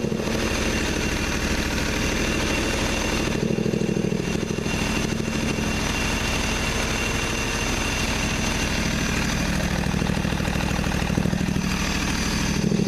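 Toro Wheel Horse 520Lxi garden tractor engine running steadily at idle during a test run. Its sound dulls briefly about four seconds in.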